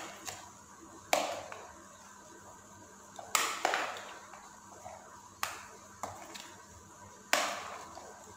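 Chickpea chaat being tossed and mixed in a plastic bowl: about half a dozen sharp scrapes and taps, each falling away within a second, spaced a second or two apart.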